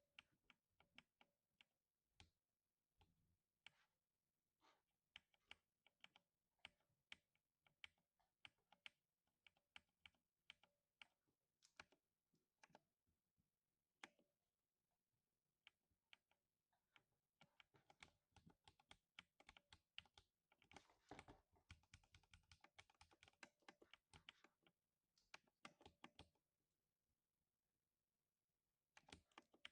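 Faint typing on a lubed 60% mechanical keyboard: irregular keystrokes with a deep thock, speeding into a fast, dense run about two-thirds of the way through, then stopping for a few seconds before resuming near the end.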